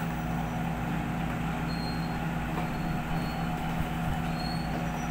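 Steady low mechanical hum, as from a machine running continuously, with a few faint, short high-pitched tones over it.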